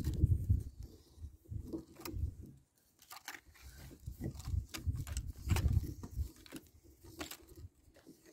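Plastic and brass pipe fittings being screwed together by hand, giving scattered light clicks and scrapes of the threads and parts, with bursts of low rumble from wind on the microphone.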